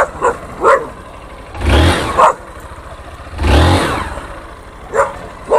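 Honda XRE 190 single-cylinder motorcycle engine revved in two short throttle blips, with a dog barking sharply a couple of times near the start and again near the end.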